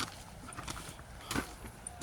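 Footsteps on a rocky hiking trail: irregular scuffs and knocks of shoes on stone and grit, with one louder step about one and a half seconds in.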